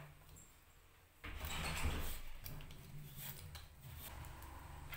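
A hand-held vegetable peeler scraping the skin off a raw potato in repeated strokes, starting about a second in, with the rub and knock of hands handling the potato over a plastic cutting board.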